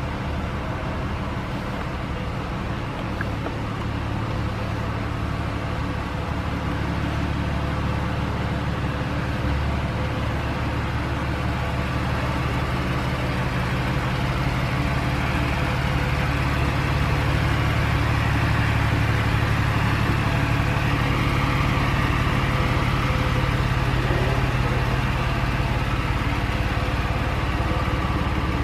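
2006 Porsche 911 Carrera 4's 3.6-litre flat-six idling steadily, getting somewhat louder over the first half and then holding.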